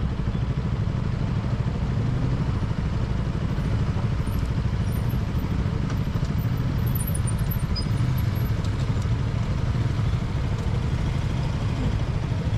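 KTM Duke 200 single-cylinder motorcycle riding along a city street, its engine running steadily under a constant low rumble of road and wind noise.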